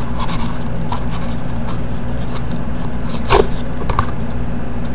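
Hands slowly tearing and handling the cardstock of a "Dare to Tear" trading card: faint scratches and rips, with a sharper scrape just over three seconds in and a click about a second later. A steady low hum runs underneath.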